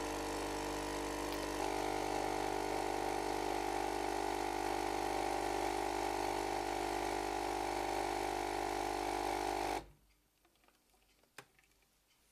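Espresso machine's pump humming steadily as it brews a shot into a glass; the tone shifts slightly a couple of seconds in. It cuts off suddenly near the end, followed by a faint click.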